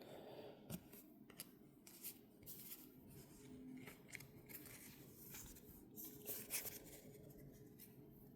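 Faint, scattered crinkles, clicks and snips as the packaging of a Pokémon card collection box is handled and opened, with a louder cluster of crinkles about six seconds in.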